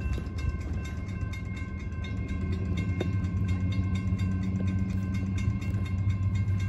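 Railroad crossing bell ringing in rapid, even strokes, over the low rumble of an approaching freight train led by a GE ES44AH diesel locomotive. The rumble grows a little louder toward the end.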